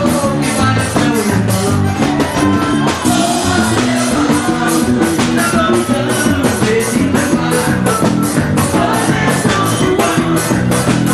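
Forró band music with a steady, even beat.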